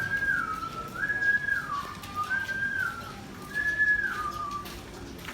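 A person whistling a repeated two-note phrase: a held high note sliding down to a lower one, four times over.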